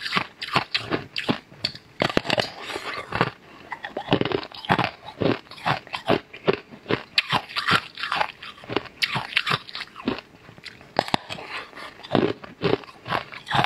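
Close-miked biting and chewing of a thin, pale sheet of food: a quick, uneven run of sharp crackly bites and chewing clicks, several a second.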